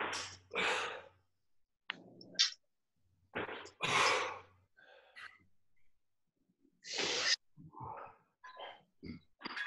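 Hard, forceful breaths during exercise: a series of sharp exhalations, each about half a second long, picked up through a video-call microphone, with a few light knocks in between.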